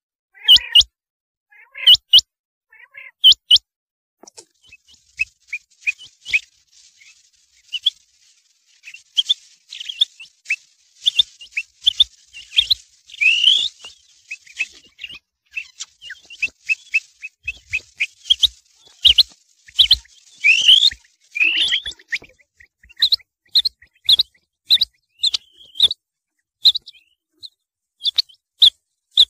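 Rain quail calling: short, sharp, high-pitched notes repeated in quick series. A dense stretch of overlapping calls runs through the middle, and a steady run of about two notes a second follows near the end.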